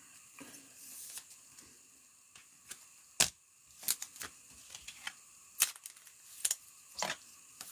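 Trading cards being handled and flipped through, giving a string of separate sharp clicks and taps, the loudest about three seconds in.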